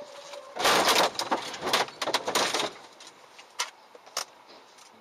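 Vehicle collision: a sudden loud crunch of impact with scraping and rattling for about two seconds, then two sharp knocks.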